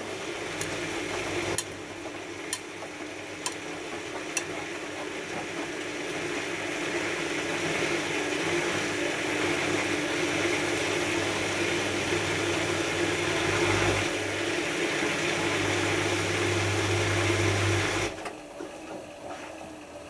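Hotpoint HF8B593 washing machine taking in rinse water: a steady hiss of water with a low hum that grows louder, then cuts off suddenly near the end as the fill stops. A few faint clicks come about once a second near the start.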